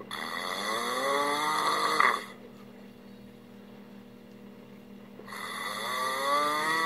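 A man snoring: two long snores about three seconds apart, each rising in pitch over about two seconds. The first ends abruptly.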